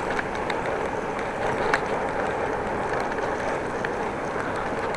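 Steady rushing noise of a bicycle ride in gusty wind: wind on the microphone and tyre rumble on the road, with scattered small clicks and rattles from the bike.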